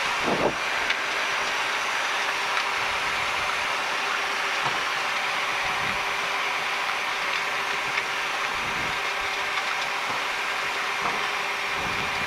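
Steady cockpit noise of a Boeing 737 taxiing: a constant hiss of air conditioning and engines at idle, with a steady hum running through it. A few soft low thumps come through.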